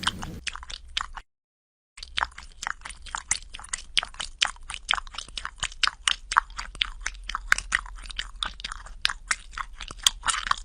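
A pet licking and sucking at its own foot: a quick run of wet smacking clicks, about five a second. The sound cuts out briefly about a second in.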